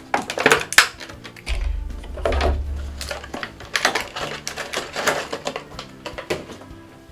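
Irregular sharp clicks and rattles of a plastic action figure and its small accessories being handled, with a low rumble lasting about two seconds starting about a second and a half in.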